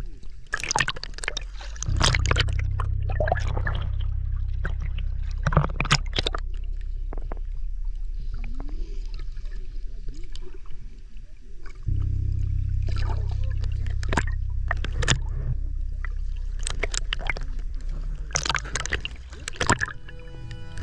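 Underwater sound picked up by a snorkeler's camera: water moving and bubbling around it with sharp crackling clicks, over a steady low rumble that sets in about two seconds in and drops out briefly near the middle. Steady musical tones come in near the end.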